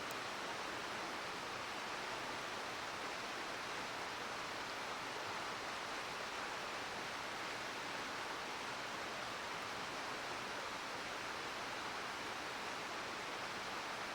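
Mountain river rushing steadily over rocks, an even, unbroken water noise.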